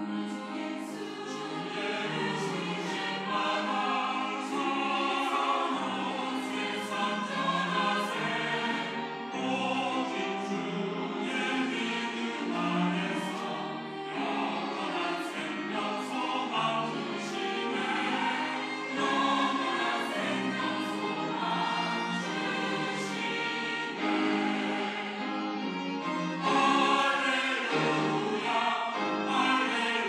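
Mixed church choir of men's and women's voices singing an anthem, accompanied by violins.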